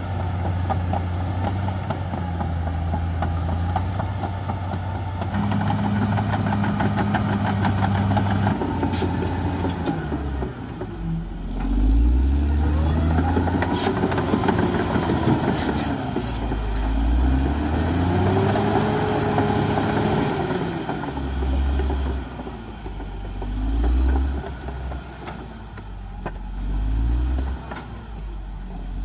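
Caterpillar D6R XL bulldozer's diesel engine running steadily, then its revs rising and falling several times as it works. A few sharp clanks are heard along the way.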